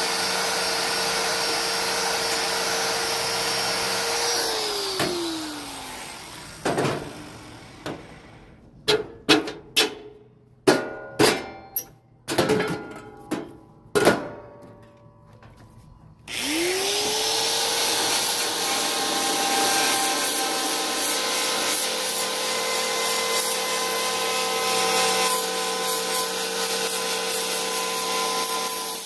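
Handheld electric power tool on the vehicle's floor-pan metal, running steadily, then winding down about four seconds in. A run of about ten sharp knocks follows. The tool spins up again about sixteen seconds in and runs on with a rasping, grinding noise.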